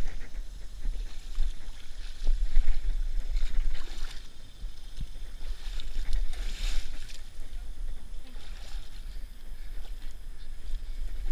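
People wading through muddy creek water, their legs sloshing and splashing unevenly, over a steady low rumble on the microphone.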